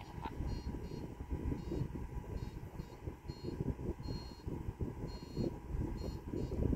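Outdoor wind buffeting the microphone with a low, uneven rumble. Faint, short high-pitched chirps repeat every second or so.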